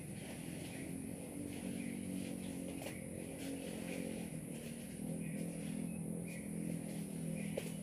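A colony of wild forest bees humming: a steady low drone of several wavering pitches that thickens about a second and a half in.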